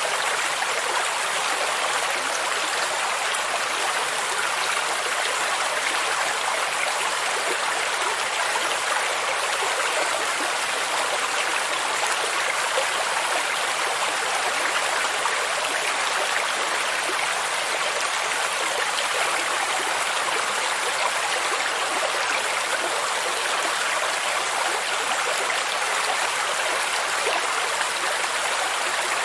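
Steady rushing and babbling of a stream, with a waterfall's constant splash, even and unchanging throughout.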